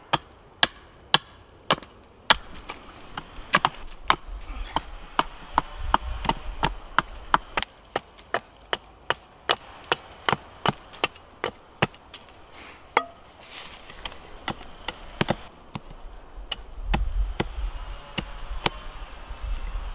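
Small hatchet chopping into the end of a wooden pole resting on a log: a series of sharp, separate knocks, roughly two a second, with a short lull about two-thirds of the way through.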